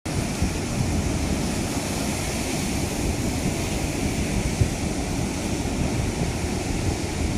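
Sea surf rushing steadily, with wind buffeting the microphone in a constant low rumble.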